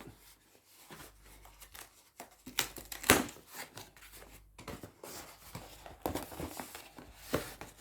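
A shipping package being opened by hand: rustling, tearing and crinkling of packaging, broken by irregular sharp clicks and snaps, the loudest about three seconds in.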